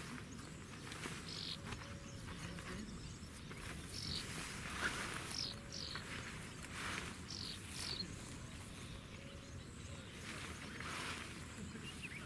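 Rustling of a pop-up gazebo's canopy cover being handled and pulled over its folding metal frame, in irregular swishes, with small birds chirping now and then.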